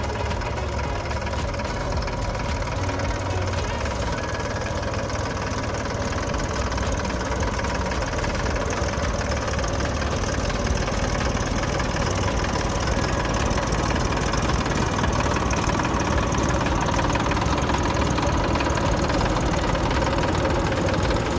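Tractor engine running steadily while pulling a potato harvester, getting slightly louder over the second half.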